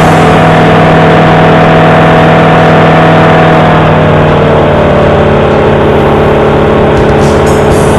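Flight Design CTsw's Rotax 912 engine and propeller running steadily in flight, heard inside the cockpit. About four seconds in, part of the drone slides lower in pitch and gets slightly quieter.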